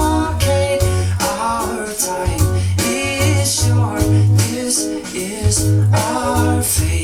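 A pop song with singing, bass, guitar and percussion, played back over Dali Zensor 1 AX wireless speakers.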